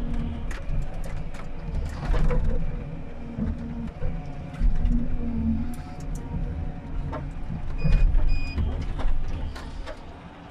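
Komatsu 931.1 harvester heard from inside its cab: the diesel engine and hydraulics running under varying load as the harvester head handles logs, with repeated sharp knocks and cracks of wood and metal. Two short electronic beeps sound about eight seconds in.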